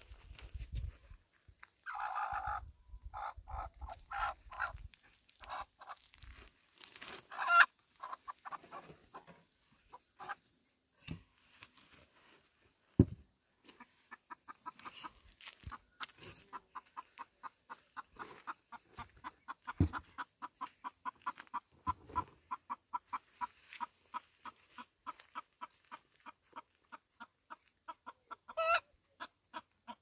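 Chickens clucking, with a louder pitched call about two seconds in and a steady run of short clucks, about three a second, through the second half. A few sharp knocks stand out, the loudest about seven and thirteen seconds in.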